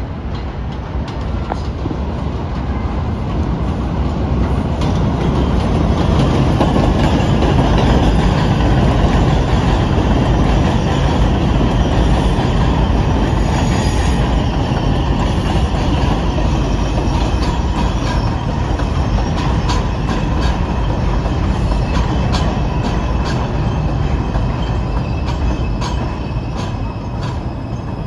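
New York City subway train running over steel elevated track: a steady rumble of wheels that builds to its loudest about eight seconds in and then eases off, with thin, high wheel squeal above it and a run of rail-joint clicks in the second half.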